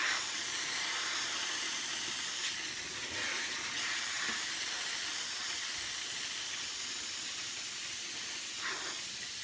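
Steamer wand hissing steadily as it jets steam onto clear bra (paint protection film), heating the adhesive so the film peels away without leaving residue.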